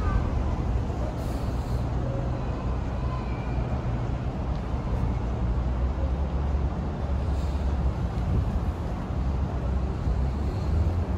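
City street traffic: vehicles running past as a steady low rumble of engines and tyres.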